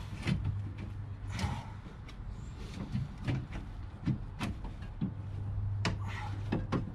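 Irregular clicks and knocks of hand tools and plastic as the grille's last screw and its plastic retaining clip are worked loose from behind, over a steady low hum.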